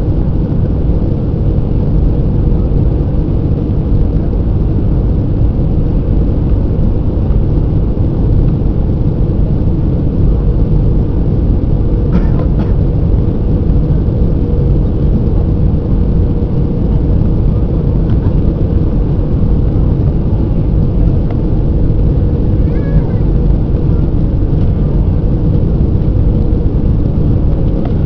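Cabin noise inside an Airbus airliner on its landing approach: a loud, steady roar of the engines and the air rushing past, with a faint steady hum under it.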